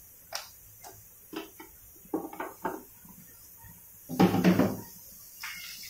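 Thick onion-tomato gravy bubbling under a glass pot lid as it comes to the boil, giving scattered short pops, with a louder, longer burst of bubbling about four seconds in.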